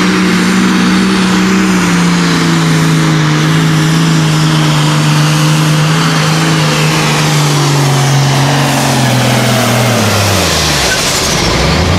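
Super Farm pulling tractor's turbocharged diesel engine running hard at high revs under load while pulling the sled, at a steady pitch. Over the last few seconds the revs fall off and the pitch drops.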